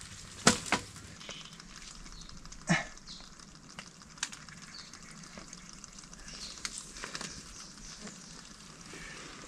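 A collapsible crab pot handled among mangrove roots on mud: sharp knocks about half a second in and again near three seconds, over a faint steady crackle of small ticks.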